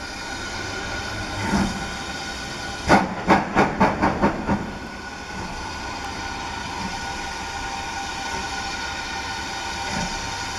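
BR Standard Class 4MT 2-6-0 steam locomotive hissing steam steadily, with a quick run of about seven exhaust chuffs, about four a second, some three seconds in.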